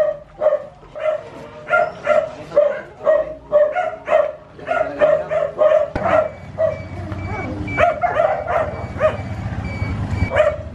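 A dog barking over and over, about two barks a second. About six seconds in, a motorcycle tricycle's engine starts running steadily under the barking.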